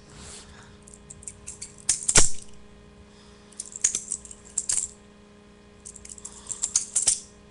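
Butterfly knife (balisong) being flipped: its metal handles and blade clicking and clacking against each other in quick clusters, the loudest clack about two seconds in, with further runs of rattling clicks around the middle and near the end.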